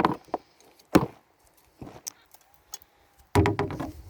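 A garden tool digging into soil: three separate strikes about a second apart, then a longer, louder scrape and rustle near the end.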